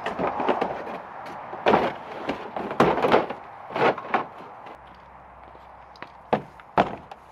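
Hunting gear being handled and loaded into a truck and boat: a run of irregular clunks and knocks, the loudest about two to four seconds in, then two sharp knocks near the end.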